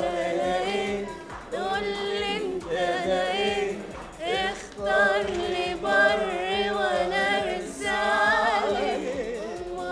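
Contestants singing unaccompanied: a run of short sung phrases with held notes that waver in pitch, a man's and a woman's voice among them.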